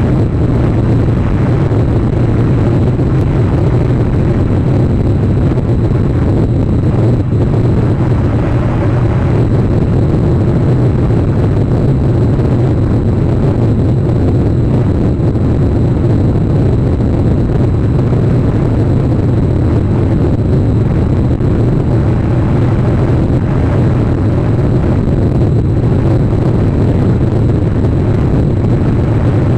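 A steady, loud, low rumbling noise with no separate events.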